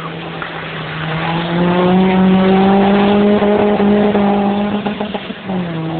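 Hill-climb race car's engine pulling hard under load, its pitch rising steadily, then a short break and a drop in pitch at a gear change about five and a half seconds in.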